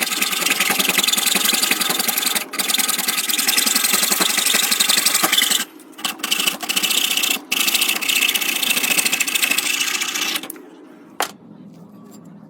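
Wood chipper grinding up wood, a loud rasping churn with brief breaks about two and a half, six and seven and a half seconds in, stopping about ten and a half seconds in.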